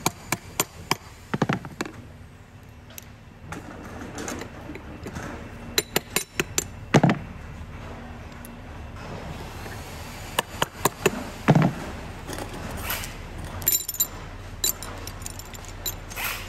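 Steel parts of a cycloidal pinwheel reducer being worked together: quick hammer taps on the centre bearing at first, then scattered metal clinks and knocks as pins and rollers are fitted into the housing. A few heavier thunks come at intervals, and some clinks near the end ring briefly.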